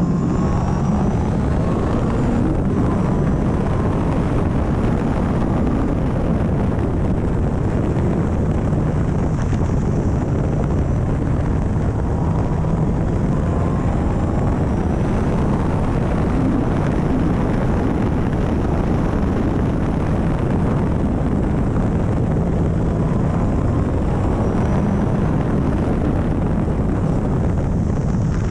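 Onboard sound of a Caterham CSR260 at racing speed: its four-cylinder engine running under load beneath heavy wind rush over the open cockpit. Steady throughout, with the engine pitch rising faintly a few times.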